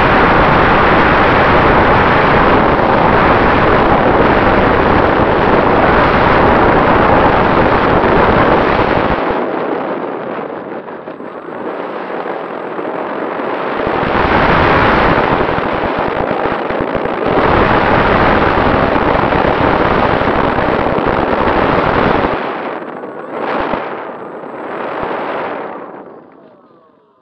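Wind rush and the electric motor and propeller of an RC E-Flite F4U Corsair, heard through its onboard camera as a loud, buffeting roar with a faint steady whine. It is steady while the plane is airborne, eases after about nine seconds as it touches down, then surges twice as the throttle is opened to taxi on the grass. Two short throttle blips follow before the motor stops and the sound fades away.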